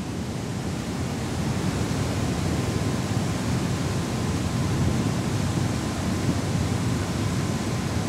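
Steady outdoor wind and water noise, a low rushing with no distinct events.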